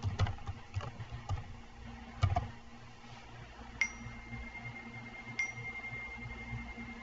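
Sparse computer keyboard keystrokes, a few separate clicks with the loudest about two seconds in. From about four seconds in a faint steady high tone runs alongside.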